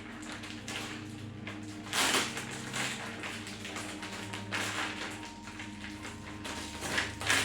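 Packaging and fabric rustling as a boxed breastfeeding pillow and its sack are handled, with louder bursts of handling about two seconds in and near the end. Soft background music plays under it.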